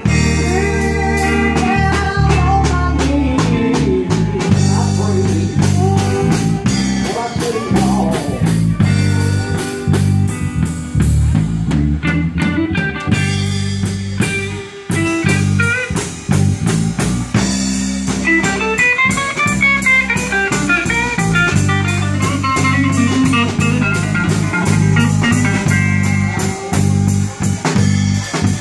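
Live band playing blues: electric guitar over bass and a drum kit, with a steady beat.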